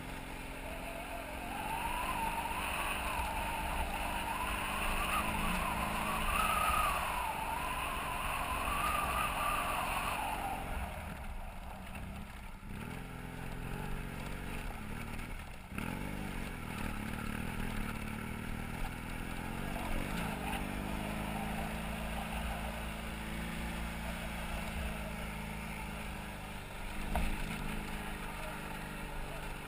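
BMW F800GS motorcycle's parallel-twin engine running while under way, with a wavering higher whine over roughly the first ten seconds.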